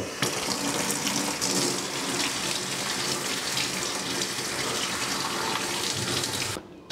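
Tap water running in a steady stream and splashing over a small fabric-covered Bluetooth speaker held in the hand beneath it. The flow cuts off suddenly near the end.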